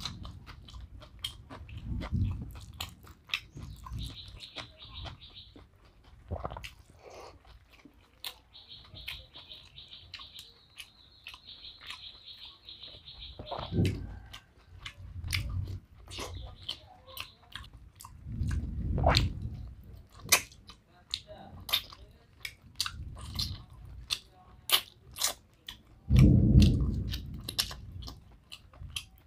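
Close-miked chewing of chicken and rice, with many sharp wet mouth clicks and smacks. Several loud low rumbles come and go, the loudest near the end.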